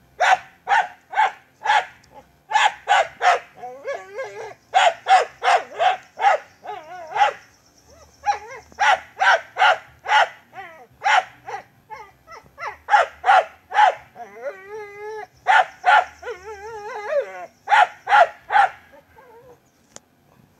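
An animal's repeated high yelping calls, in quick runs of three to five with short pauses between runs, and a wavering whine about halfway through.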